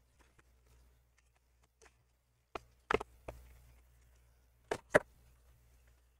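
Plastic packaging tray of an M.2 SSD being opened and handled: a few sharp plastic clicks and knocks, the loudest two close together about three quarters of the way through.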